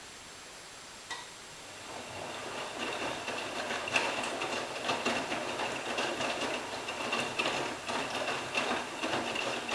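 AEG Lavamat 86760 front-loading washing machine starting a wash turn: a click about a second in, then the drum motor starts and the wet laundry tumbles and sloshes, with a steady motor whine and irregular clatter.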